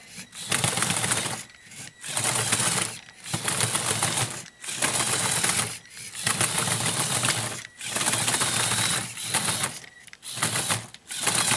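Power Functions XL motor driving a motorized Lego Technic Extreme Adventure on its tracks: a motor whirring and plastic gears and tracks clattering rapidly. It goes in about six short runs, stopping and starting again each time.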